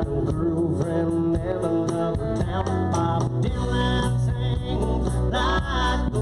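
Live band playing a song, with electric guitar prominent over bass and a steady beat.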